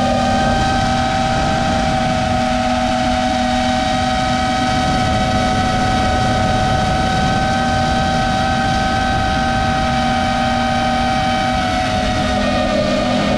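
FPV quadcopter's electric motors and propellers whining at a steady pitch, with wind rushing over the onboard camera's microphone; the pitch dips slightly near the end.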